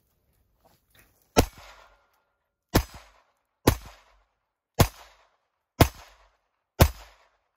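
Glock 44 .22 Long Rifle pistol firing six single shots at a slow, steady pace of about one a second, each shot followed by a short echo.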